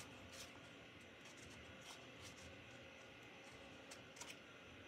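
Near silence: room tone with a few faint, short clicks as a small plastic paint marker is handled.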